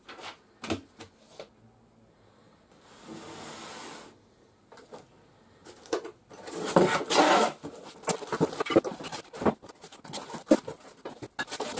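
A cardboard flat-pack box being opened and unpacked by hand: a few quiet paper rustles and taps, then from about halfway the flaps are pulled back and the parts inside are handled, with busy rustling, scraping and light knocks.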